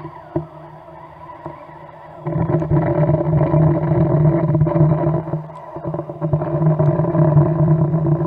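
Boat engine heard underwater: a steady low drone with overtones that comes in suddenly about two seconds in and dips briefly midway, over a few faint clicks.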